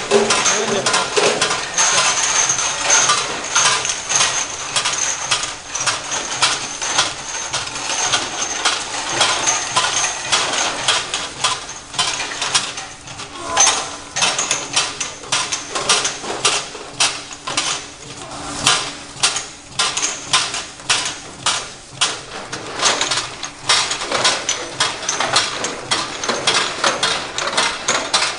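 Sticker labeling machine running: a steady clatter of mechanical clicks and knocks, with a faint high whine over the first part. In the second half the knocks fall into a more regular rhythm, about one or two a second.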